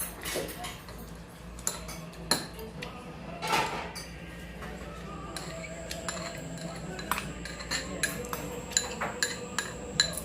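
Cutlery and dishes clinking: scattered short, sharp clinks, coming more often in the second half, over a low steady hum.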